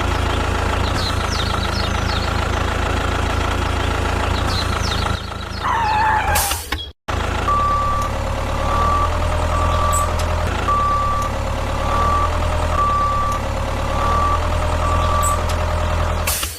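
Truck engine running steadily; after a cut about seven seconds in, a reversing beeper sounds in an even series of beeps, a little more than one a second, over the running engine.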